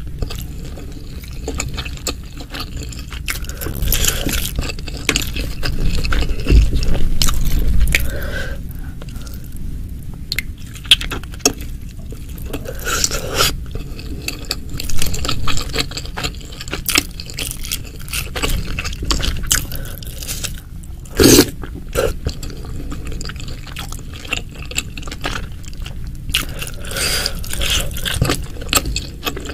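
Close-miked eating sounds: a person chewing and biting spicy Indonesian meatballs in broth, with irregular wet clicks and scrapes. The loudest bursts come about seven seconds in and just past twenty-one seconds.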